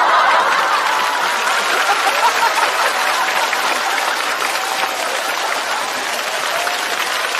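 Large studio audience applauding, starting suddenly and holding steady, with a few voices audible through the clapping.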